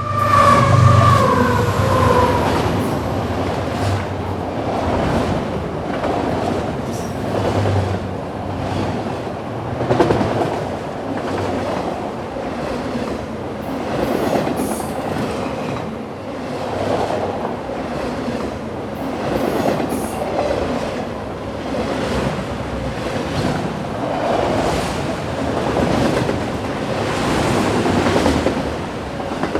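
GE ES44AC diesel-electric locomotive passing, its horn note sliding down in pitch and fading in the first two seconds as it goes by. Then the train's cars roll past: a steady rumble with the rhythmic clickety-clack of wheels over rail joints and a few brief high wheel squeals.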